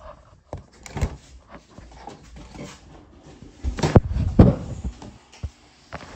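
Handling noise from a phone being moved around: scattered knocks and rubbing on the microphone, with a cluster of heavier thumps about four seconds in.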